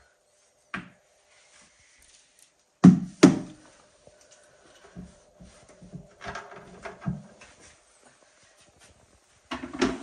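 Knocks and thumps of a heavy tabletop water fountain being handled and shifted on a table: two loud thumps close together about three seconds in, then lighter knocks and rustling of its cords.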